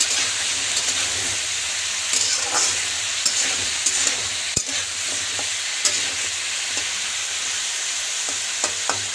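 Cubed potato and brinjal sizzling as they fry in oil in a metal kadai, with a metal spatula scraping and clicking against the pan as they are stirred. One sharper tap of the spatula on the pan comes about halfway through.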